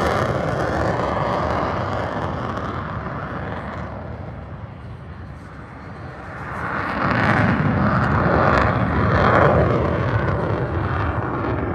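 Jet fighter flying past: its noise fades away, then a second pass swells up about six seconds in, peaks and dies down again.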